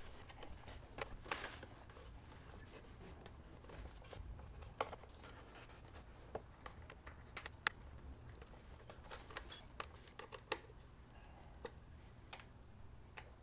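Faint, scattered small clicks and brief scrapes of hands handling plastic fender parts, a cable and a bolt on a motorcycle's front fork.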